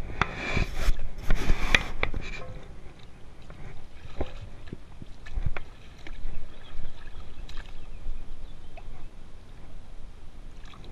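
Water splashing and sloshing as a pike is handled and lowered into shallow river water for release, loudest in the first two seconds, then lighter scattered splashes and knocks.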